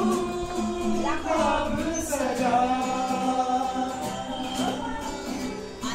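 Music with singing voices holding long notes that glide in pitch.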